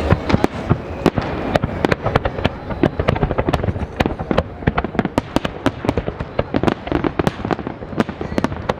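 Fireworks display: a dense, irregular run of sharp bangs and crackling reports, several a second, over a continuous rumble of the show.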